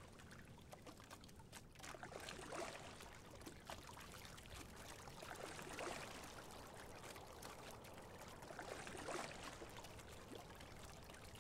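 Faint water sounds from a rowing single scull: a soft swell of splashing and trickling at each oar stroke, about every three seconds.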